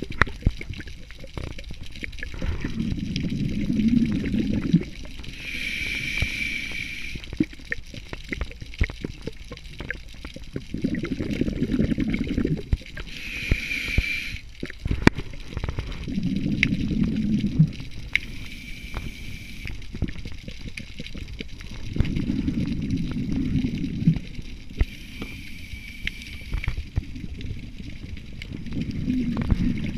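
Scuba diver breathing through a regulator underwater: a short hiss on each inhale alternates with a gurgling burst of exhaled bubbles, about five breaths in all. Scattered sharp clicks run through it.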